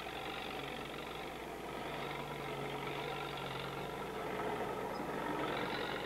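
Farm tractor pulling a corn chopper (forage harvester) through field corn, its engine and the harvesting machinery running steadily.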